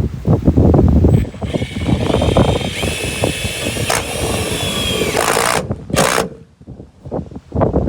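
Cordless drill with an 8mm hex bit holder driving a self-drilling tek screw into metal: the motor whines steadily for about four seconds, dipping in pitch as the screw bites, then gives two short trigger blips. Wind buffets the microphone before the drill starts and again near the end.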